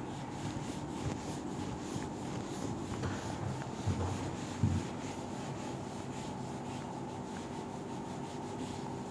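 Handheld eraser wiping marker writing off a whiteboard, rubbing back and forth in quick repeated strokes, about three a second, with a couple of soft thumps about four seconds in.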